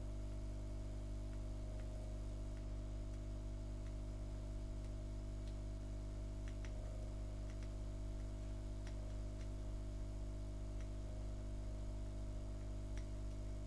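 Steady low electrical hum with several held tones, and a few faint small clicks scattered through it.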